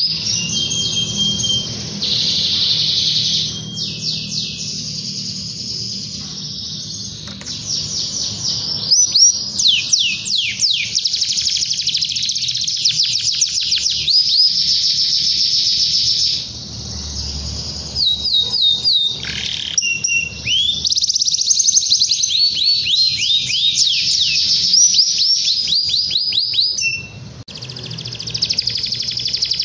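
Domestic canary singing a long, continuous song of fast trills and rolls: rapid runs of repeated downward-sweeping notes that change phrase every second or two. There is a short break near the end.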